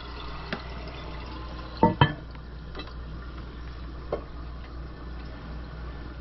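Hard knocks and clunks from handling the porcelain toilet tank and its new lever. The loudest is a quick double clunk about two seconds in, with lighter taps before and after, over a steady background hiss.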